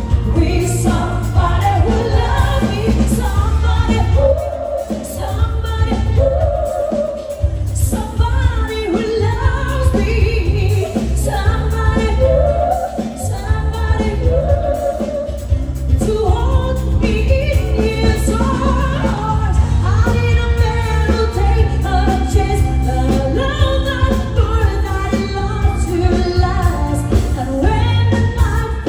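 A woman singing a pop song with a live band accompanying her, a steady bass line under the melody.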